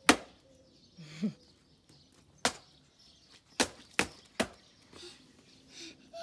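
A child's rubber rain boots stomping and splashing in a shallow puddle on wet concrete: about six sharp slaps, the first the loudest, with three in quick succession later on.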